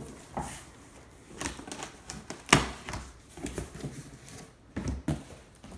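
Cardboard shipping box and packaging being handled and opened: a run of irregular knocks and scuffs, the sharpest knock about two and a half seconds in.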